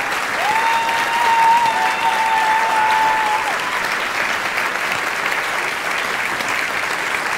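Large audience applauding steadily. About half a second in, one long high note from someone in the crowd is held for about three seconds.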